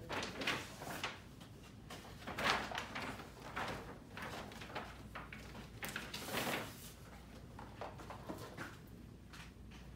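Gift bags and wrapping rustling and crinkling as presents are pulled out and handled, in irregular bursts with a few louder rustles scattered through.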